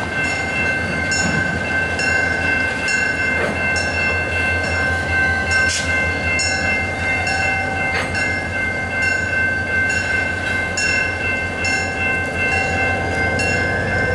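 Railroad grade crossing warning bell ringing steadily, about two strikes a second, over the low steady rumble of a diesel locomotive nearby.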